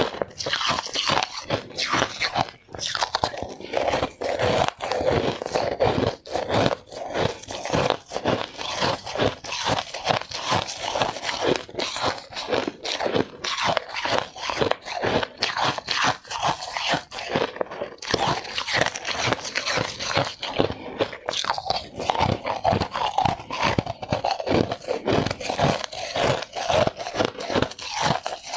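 Close-miked crunching of ice being bitten and chewed: rapid, continuous crunches with no real pause, as balls of frozen ice are eaten.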